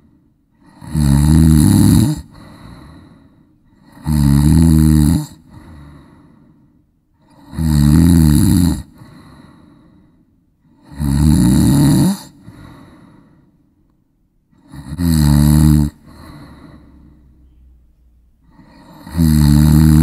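Loud snoring: a drawn-in, rattling snore lasting about a second, repeated about every three and a half seconds, six times, with soft breathing between snores.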